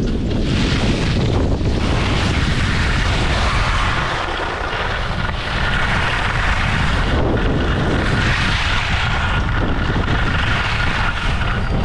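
Wind rushing over the microphone at skiing speed, with a continuous hiss of skis sliding and carving on packed snow.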